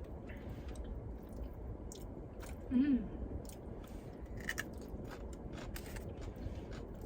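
Close-miked chewing of a beef quesadilla taco, with many small wet mouth clicks and smacks. About three seconds in comes one short hum from a voice, rising then falling in pitch, the loudest moment.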